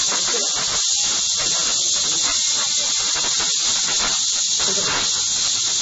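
Steady, even hiss with no breaks, the background noise of an old low-quality video recording, with faint indistinct sounds beneath it.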